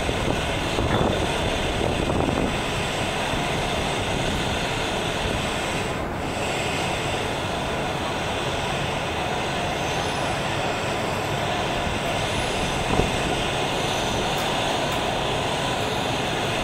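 Steady outdoor city noise, an even rumble and hiss with no distinct tones, and a single short knock about thirteen seconds in.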